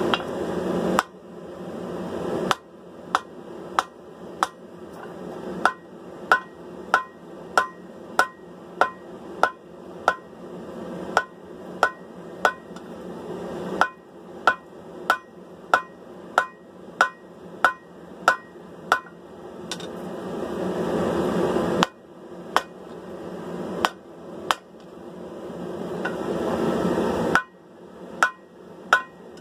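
Hammer striking hot steel on an anvil in a steady run of blows, about two a second, drawing down a sword blank toward the tang. The blows stop for short pauses near the start and about two-thirds of the way through, where a steady rushing noise is heard.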